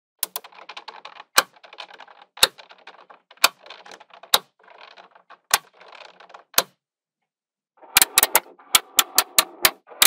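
Small magnetic balls clicking and clattering as strips of them are snapped onto a magnet-ball wall: sharp clicks about once a second over a soft rattle, then after a short pause a fast run of clicks as rows are pushed together near the end.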